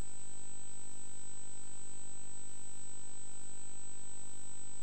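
A steady high-pitched electronic tone over a faint low hum, unchanging.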